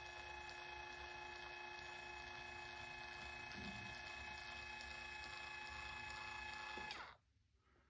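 Electric linear actuator's small motor whining steadily as it extends its rod, driven in the choke step of a generator auto-start sequence. It cuts off with a click about seven seconds in.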